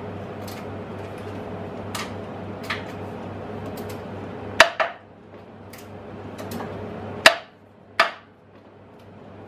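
Sharp metal knocks and clanks as a steel billet is seated in machine vises on a milling-machine table and the vise is worked with its handle, the loudest two about four and a half and seven seconds in. A steady low hum underneath drops away after the second loud knock.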